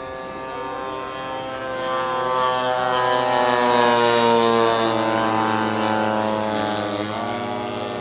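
Large-scale radio-controlled propeller plane's engine running in a flyby overhead, growing louder to a peak about halfway through and then fading, its pitch falling slowly after the loudest point.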